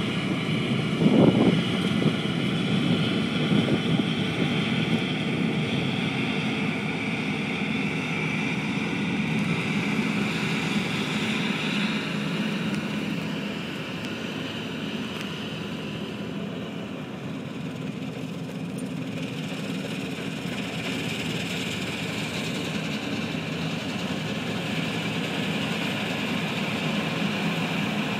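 New Holland TF78 combine harvester running steadily while harvesting: a constant mechanical drone with a high whine over it. A brief louder low rumble comes about a second in, and the high whine fades for a few seconds in the middle before returning.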